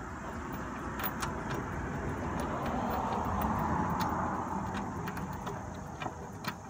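A passing vehicle, its sound swelling to a peak midway and fading again, with a few scattered clicks from a hand socket wrench turning a bolt.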